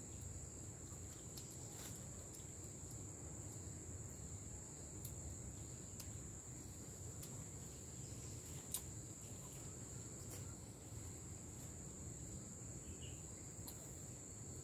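Insects, crickets or cicadas, droning in one steady high-pitched unbroken tone over a low, even outdoor background. A few light clicks cut through it, the sharpest about nine seconds in.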